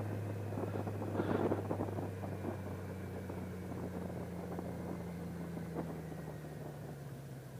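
Motorcycle engine running at low speed with a steady low hum. Its note drops a little near the end as the bike slows.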